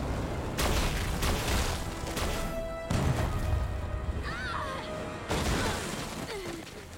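Cartoon action sound effects of missile blasts and crashes, with three sudden loud hits about two to three seconds apart, over dramatic background music.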